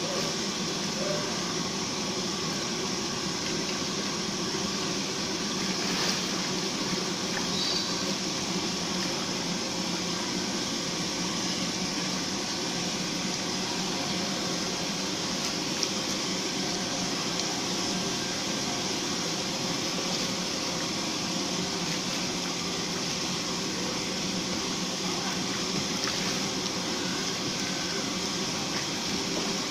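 Steady, unchanging machine whir with a low hum underneath.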